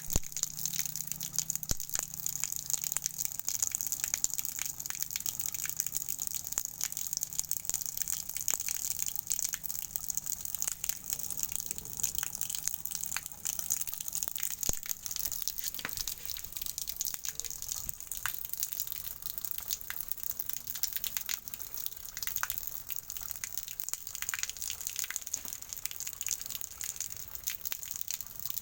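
Water running from a tap in a steady gush, splashing and spattering into a basin.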